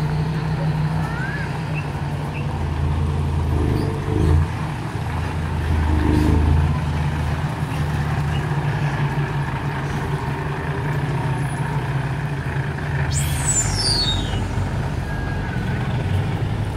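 Hino dump truck's diesel engine running as the truck drives and maneuvers, swelling briefly a couple of times, with a short high falling sound about thirteen seconds in.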